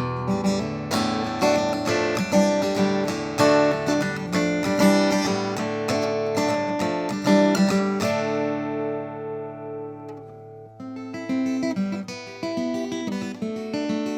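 Fender Paramount acoustic guitar played through its Fishman under-saddle piezo pickup and heard from a PA speaker, picking notes and chords. About eight seconds in, a chord is left to ring out and fade, and the playing picks up again nearly three seconds later.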